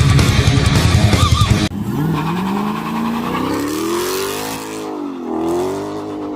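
Heavy rock music cuts off abruptly about a second and a half in. A vehicle engine then revs, its pitch climbing steadily over a few seconds, dipping briefly and rising again near the end.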